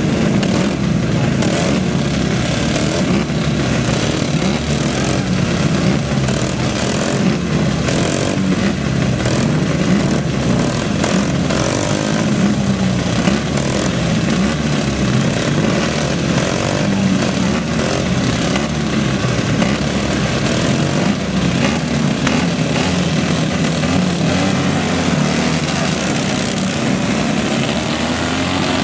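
Engines of a pack of vintage motocross sidecar outfits running and revving together on the start line: a loud, dense, wavering engine drone.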